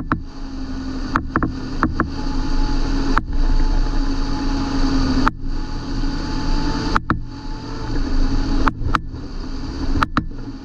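John Deere 8320 tractor's six-cylinder diesel engine running steadily with a low droning note. Sharp clicks cut in now and then, and there are a few brief dips.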